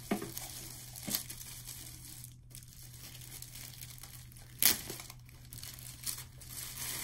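Clear plastic wrapping crinkling and tearing as hands pull it off a wooden humidor. It rustles steadily, with a few sharper crackles, the loudest a little past halfway.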